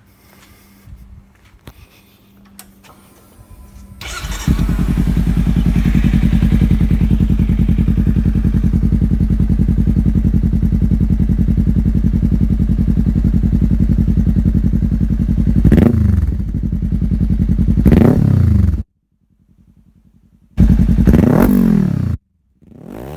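Kawasaki Ninja 300's parallel-twin engine, breathing through a full Giannelli aftermarket exhaust, starts about four seconds in and idles steadily. Near the end it is revved with quick throttle blips three times. The recording's sound cuts out twice between the revs.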